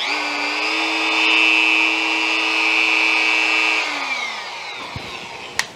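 Dremel 4300 rotary tool spinning a metal cut-off disc on its EZ Lock mandrel, running free at high speed with a steady whine. About four seconds in it is switched off and the whine falls away as the motor spins down. A click near the end.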